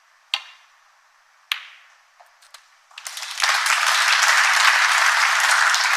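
Snooker cue striking the cue ball with a sharp click, then a second sharp ball click about a second later and a couple of lighter knocks as the balls run. The audience breaks into applause about halfway through.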